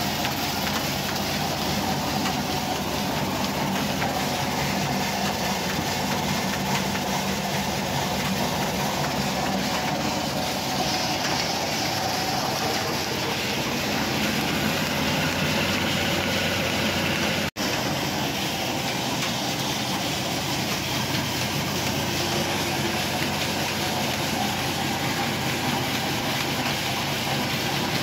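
Belt-driven masala and flour grinding mills running off an electric motor: a steady mechanical din of motor hum, whirring flat belts and pulleys, and the grinders turning. The sound breaks off for a split second about two-thirds of the way through.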